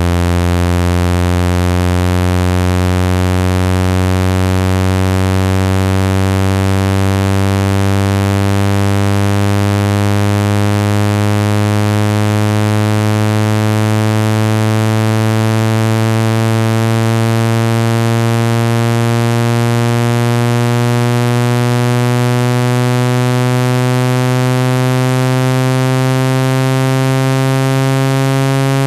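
Loud, low synthetic buzzing tone climbing slowly and evenly in pitch: a water-eject sound meant to shake trapped water out of an iPhone speaker.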